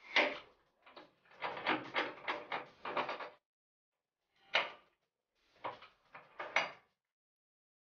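Knocks and scrapes of a Chicago Pneumatic CP7763 impact wrench's parts being handled as its red housing is fitted down over the shaft held in a vise. A close run of them lasts about three and a half seconds, then three short separate knocks follow.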